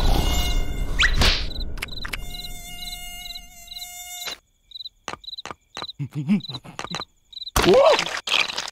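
Cartoon mosquito buzz: a high whining drone in short pulses, about two or three a second, after a short rising swish about a second in; a louder burst comes near the end.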